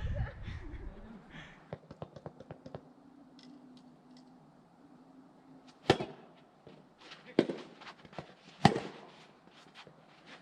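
Soft tennis balls struck by rackets: a string of sharp pops, the loudest about six seconds in, again at seven and a half, and near nine seconds, with fainter clicks of other balls before them.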